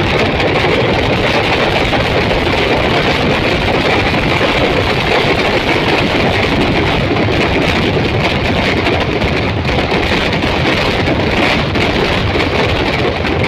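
A dense, continuous barrage of firecrackers in a temple fireworks display, the individual bangs merging into a steady, loud din.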